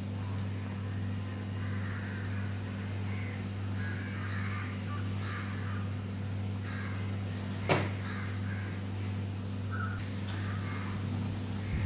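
Vella seedai (jaggery seedai) dough balls deep-frying in oil in an iron kadai, the oil bubbling steadily over a low constant hum. There is one sharp knock about eight seconds in.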